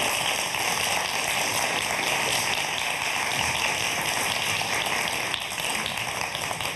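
Studio audience applauding, a steady dense patter of many hands clapping that eases off slightly near the end.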